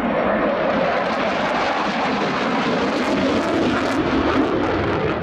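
Loud, steady jet noise from a Panavia Tornado's twin RB199 turbofan engines as it flies through a banking turn, a broad rushing sound with some crackle in the middle.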